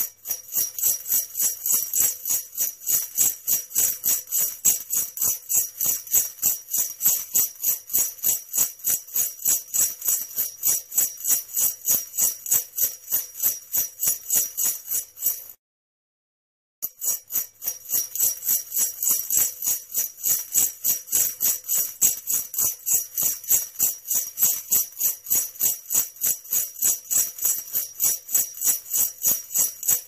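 Sleigh bells jingling in a steady rhythm, about three shakes a second. They stop for about a second just past the middle, then start again.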